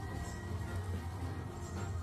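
Background music with a steady bass line.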